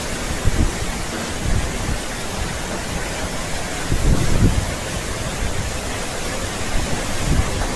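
Heavy rain pouring in a steady hiss, with strong wind gusting, and low rumbling surges about four seconds in and again near the end.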